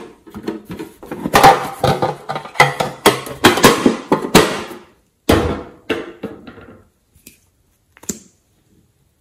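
Yellow M&M's character box being handled and opened: a quick run of sharp clicks, knocks and rattles for about five seconds, then one louder knock that dies away, and a couple of light clicks near the end.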